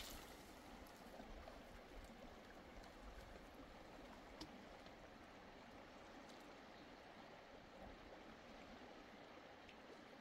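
Near silence: a faint, steady background hiss of outdoor ambience, broken by a few small ticks, the clearest about four seconds in.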